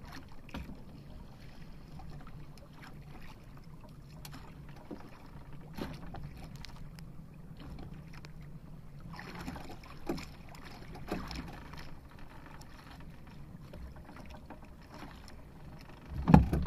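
Steady low rumble and sea noise aboard a small outrigger fishing boat, with a few faint knocks and rustles while a handline is worked over the side, and one loud thump near the end.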